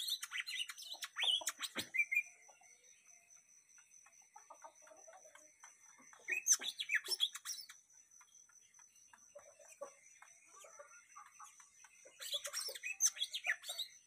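Cucak mini, a small caged Bornean songbird, singing in three bursts of quick, high chirping notes: at the start, about six seconds in, and near the end. A steady high-pitched tone runs under it.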